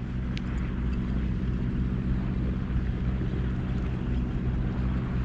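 A steady low mechanical hum made of several unchanging tones, under a constant hiss.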